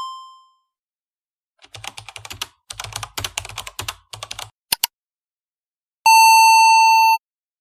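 A ringing ding fades out, then fast computer-keyboard typing clatters for about three seconds, followed by two sharp clicks. Near the end a steady electronic beep sounds for about a second.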